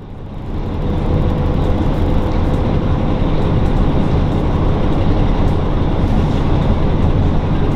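Cabin noise of a KiHa 40-series diesel railcar under way: the diesel engine's drone and the rumble of the running gear, growing louder over the first second and then steady.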